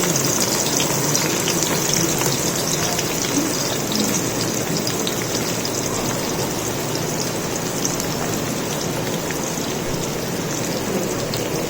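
Onions frying in a pot of hot oil, with a steady sizzle.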